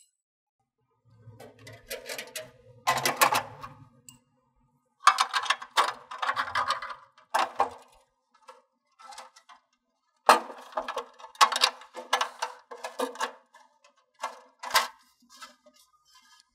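Conduit coupler being fitted into the knockout of a metal electrical panel and enclosure: irregular clicks, rattles and scraping of metal parts, in several bursts with short pauses between them.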